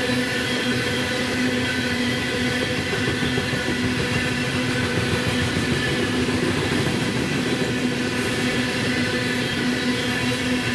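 Coal train's hopper cars rolling steadily past, a continuous rumble of wheels on rail with steady ringing tones over it.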